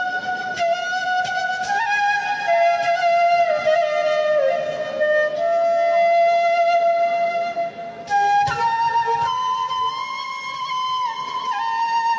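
Instrumental flute melody of slow, held notes. There is a brief break about eight seconds in, after which the tune resumes higher.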